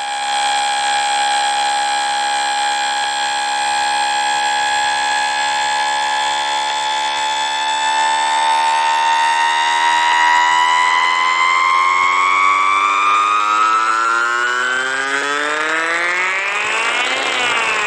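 Electronic emergency-alert alarm tone: a buzzy, many-layered tone that glides slowly and steadily upward in pitch. About two thirds in, a second copy of the tone starts falling in pitch, and the two cross near the end.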